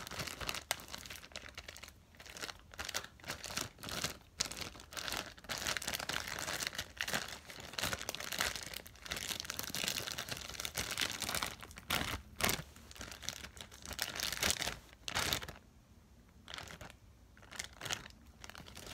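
Plastic bag crinkling and rustling as it is handled to get the slime out, in dense crackles that thin out near the end.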